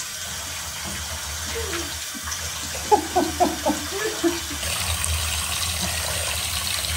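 Tap water running into a bath where a dog is being washed, the rush growing louder a little past halfway. Around the middle a dog gives a run of short, high, falling whimpers.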